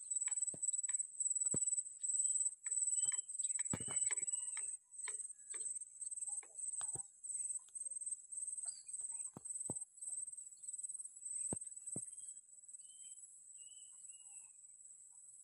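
Insect chirping: a high-pitched, evenly pulsing call that turns steadier and fainter about twelve seconds in, with scattered faint clicks and a few short higher chirps.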